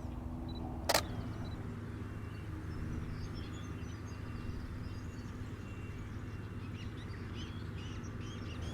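A single sharp camera shutter click about a second in, over scattered faint high chirps of small birds and a steady low hum.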